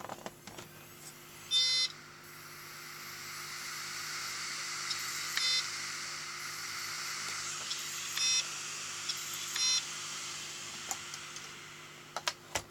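Failing Seagate Barracuda LP 2 TB hard drive (ST2000DL003) trying to boot: a whirring hiss swells up and holds as the platters spin, and the drive gives four short electronic beeps, the failure symptom it shows at boot, with a few ticks near the end.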